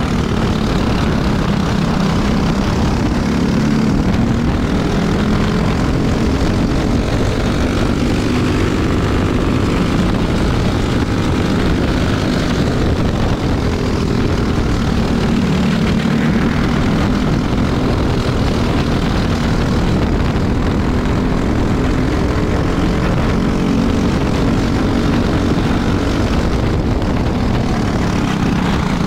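Tillotson 212 single-cylinder four-stroke kart engine running at racing speed, its pitch rising and falling as it slows for corners and accelerates out, over rushing wind noise.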